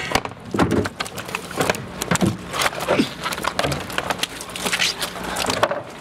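Irregular splashing and knocking as a white plastic mesh crate holding live olive flounder is handled and lifted out of a farm tank, over a steady low hum.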